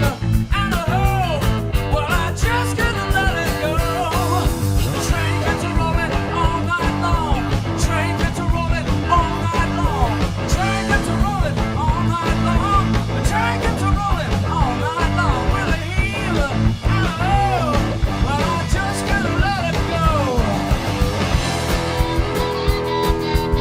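Rock band playing live: an electric guitar plays a lead line full of string bends over a driving bass and drum beat.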